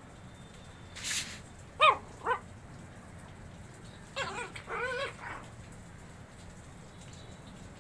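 Shih Tzu puppies yipping as they play-wrestle: two short, sharp high yips about two seconds in, then a quick run of whiny yaps a couple of seconds later.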